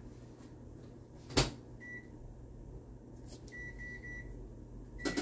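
Microwave oven being set: a sharp latch click about a second and a half in, then short keypad beeps, one, then three in quick succession, then one more near the end, as the grill setting and cooking time are entered.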